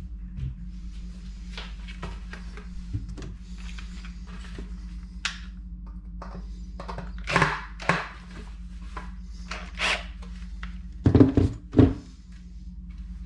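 Handling knocks of a shelf board and a cordless drill being moved about: scattered light clicks, then several louder thunks, the two loudest near the end.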